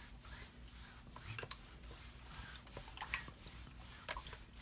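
Faint rubbing and scattered light ticks of a hand iron gliding back and forth over starch-sprayed fabric on an ironing board.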